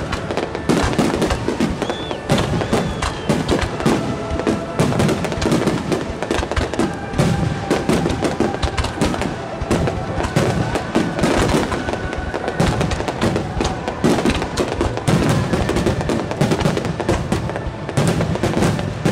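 Finale barrage of aerial firework shells, gold weeping-willow bursts among them, going off in rapid, overlapping bangs with no pause. Music plays faintly underneath.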